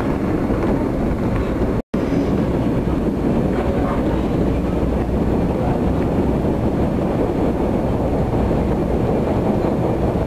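Steady rumble and roar of a passenger train running, heard from inside a passenger car; from about two seconds in the train is in a tunnel. The sound drops out completely for an instant about two seconds in.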